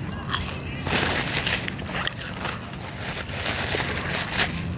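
Paper crinkling and rustling as a run of quick crackles over a steady low hum.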